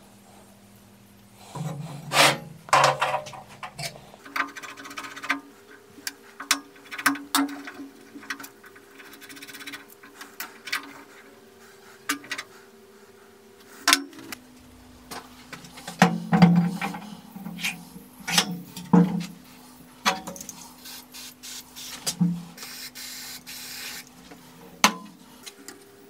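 Scattered clicks, knocks and rubbing from hands handling the rusty metal parts of an old electric school bell. Under them plays soft background music of slow held notes.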